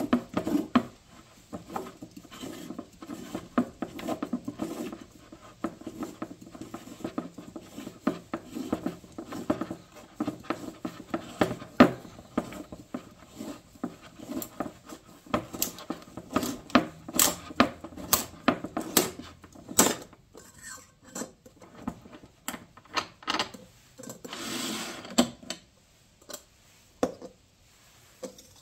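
Steel can of an ACDelco PF63 oil filter being cut open in a hand-operated oil filter cutter: the filter is turned by hand against the cutter, giving irregular metallic clicks, scraping and rubbing. A denser run of sharp clicks comes past the middle, and a short rasping scrape near the end.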